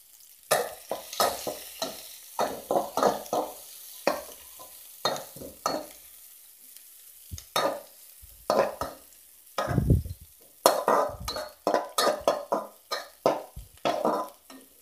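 Sliced onions frying with whole spices in ghee in an aluminium kadai, sizzling faintly, while a metal spoon scrapes and stirs them around the pan in repeated strokes, about one or two a second. A duller knock about ten seconds in.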